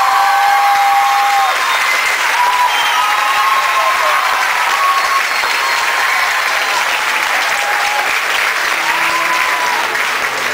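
Audience applauding, with shouts from the crowd over it in the first few seconds; a few steady low music notes begin near the end.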